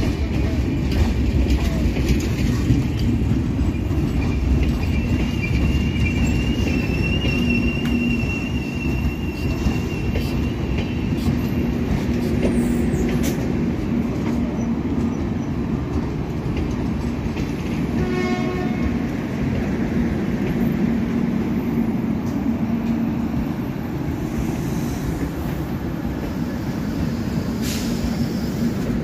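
Passenger coaches of an express train rolling past, a steady rumble of wheels running over the rails. A thin, wavering wheel squeal runs from about four to eleven seconds in, and a brief horn-like hoot sounds about eighteen seconds in.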